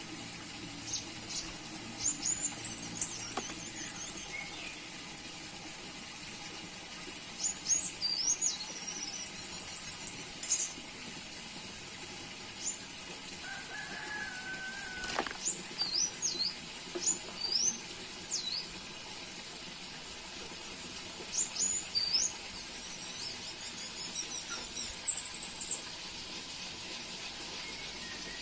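Orange-headed thrush (anis kembang) singing: short phrases of quick, high chirps and whistled sweeps every few seconds, over a faint steady high hiss.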